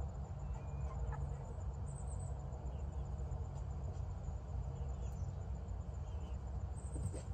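Steady low rumble of background noise, with a few faint, short high chirps scattered through it.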